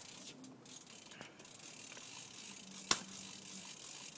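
Fishing reel being cranked to wind in line, with one sharp click about three seconds in.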